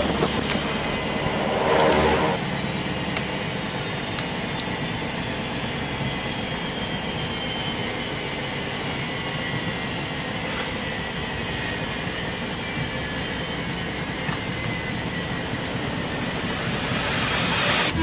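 Samsung WF80F5E0W4W front-loading washing machine on its final spin with a badly unbalanced load: a steady rushing drum noise, with a faint whine that slowly falls in pitch in the second half.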